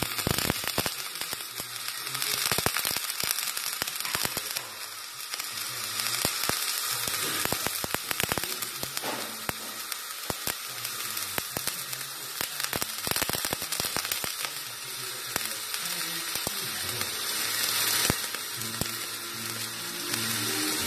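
Gasless MIG welding arc from a Qingshui MIG200i semi-automatic welder laying a bead on steel: a continuous crackling sizzle packed with sharp pops from spatter.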